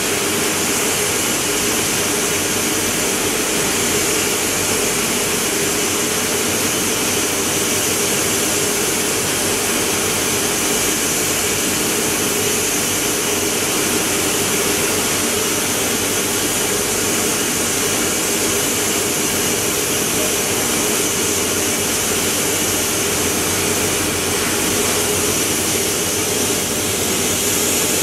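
Heidelberg Speedmaster SM 102 two-unit sheetfed offset printing press running: a loud, steady mechanical hum and hiss that does not change.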